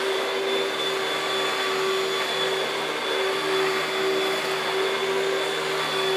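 Panasonic Jet-Flo MC-6217 upright vacuum cleaner running steadily: an even rush of air with a constant motor hum and a faint high whine.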